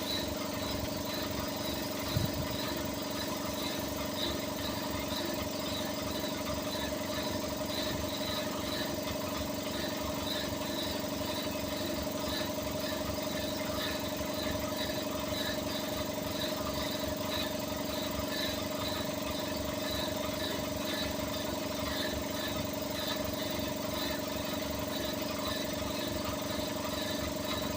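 A compressor running steadily, a hum with several steady tones and a faint, regularly repeating tick higher up. The owner takes it for an abnormal, weird noise.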